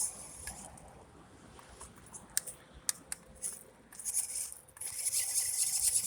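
Radio-controlled car driving in bursts: a rushing hiss from its motor and tyres fades away just after the start and comes back about four seconds in. A few sharp clicks fall in the quiet gap.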